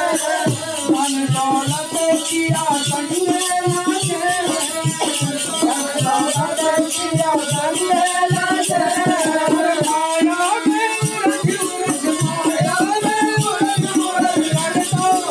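Folk devotional bhajan music: a wavering melody line over fast, steady hand-drum strokes and continuous shaken, jingling percussion.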